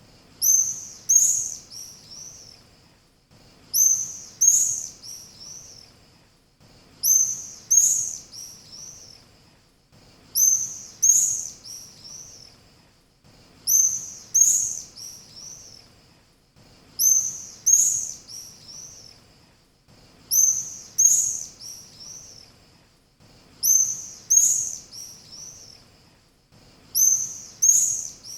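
Swallow calls: a short phrase of three or four high chirps, the first loudest and the rest fading, repeated identically about every three and a third seconds as a looped recording.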